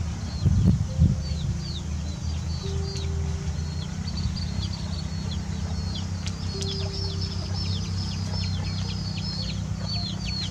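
Chicks peeping: many short, high calls that drop in pitch, several a second, growing busier and louder about four seconds in, over a steady low rumble. A couple of low thumps come in the first second.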